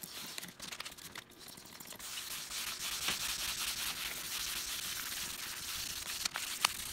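Faint handling ticks, then from about two seconds in a steady rubbing hiss of wet sanding on automotive paint, 2000-grit paper on soapy water, smoothing down filled stone chips.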